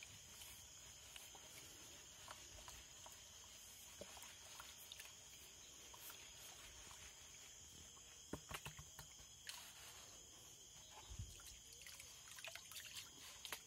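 Faint sloshing and trickling of water as a riffled plastic gold pan is swirled and dipped in shallow muddy water, washing the lighter material out, with a few small splashes about 8 to 9 seconds in and again near the end. A steady high-pitched insect chorus runs under it.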